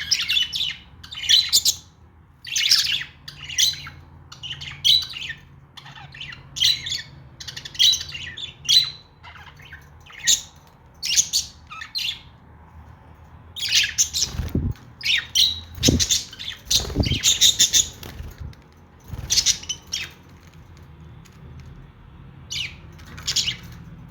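Pet budgerigars chirping and squawking in quick runs of short, high-pitched calls, busiest around the middle, with a few low thumps among them.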